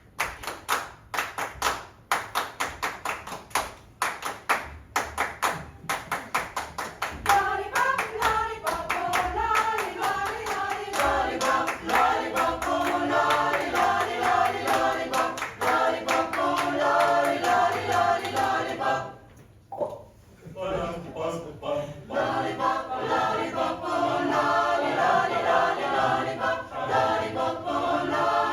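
Steady rhythmic handclaps, then a vocal group joining in with a cappella singing over them about a quarter of the way in. The singing breaks off briefly about two-thirds of the way through and then comes back.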